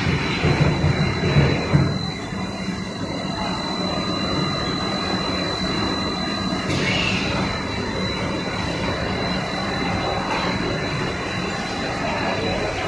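Machinery of a fried-snack frying line running steadily: a continuous mechanical noise with a low hum and a thin steady high whine, a little louder and more uneven for the first couple of seconds.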